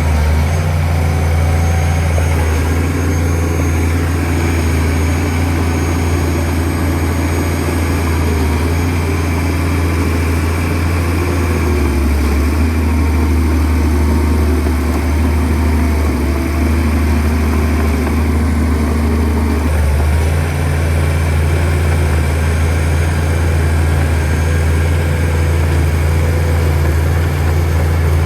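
Shantui DH17C2 bulldozer's diesel engine running steadily, its low note changing about twelve seconds in and again near twenty seconds.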